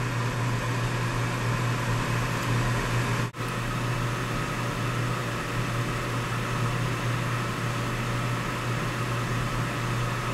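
Coleman CGU gas furnace running with its burners lit: a steady hum and rushing noise from the draft inducer blower and the gas flames. The sound drops out briefly about three seconds in.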